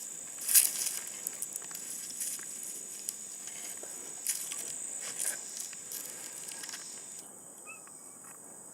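Steady high-pitched chorus of insects, with scattered rustles and clicks, the loudest about half a second in.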